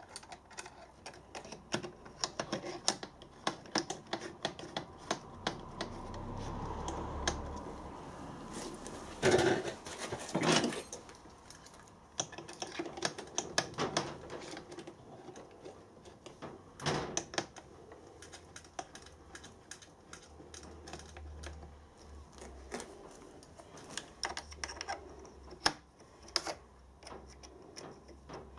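Small metal clicks and taps of an Allen key turning screws and of the aluminium DRO scale being handled and fitted against the mill table. There are a few louder knocks, two close together about a third of the way in.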